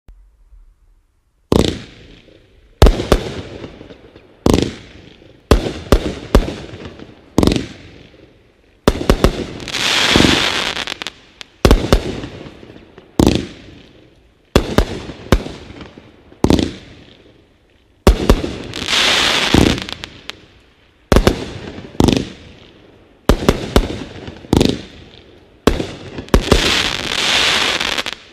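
'American Classic' multi-shot aerial fireworks cake firing: a long run of sharp bangs as shells burst overhead, some in quick clusters. Three times there is a long stretch of dense crackling from the crackling stars.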